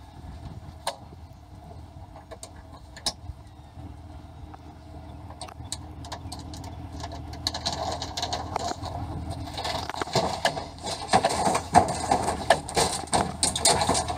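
A vehicle engine idling steadily under scattered sharp knocks. About halfway through, louder clattering and rustling set in: a towel-wrapped young alligator being pushed into a diamond-plate aluminium animal box on a pickup bed.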